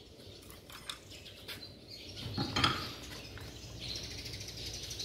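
A few light metal clinks and knocks from hand tools being handled, the sharpest about two and a half seconds in, with faint bird chirps behind.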